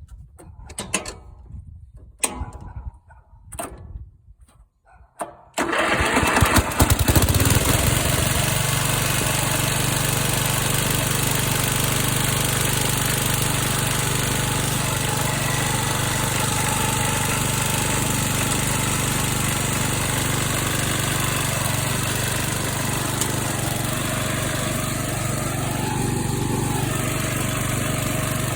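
A few short knocks, then about six seconds in a riding lawn mower's small engine fires straight away and runs steadily. It starts readily now that the carburetor has been re-tuned from a mixture with too much air and not enough gas.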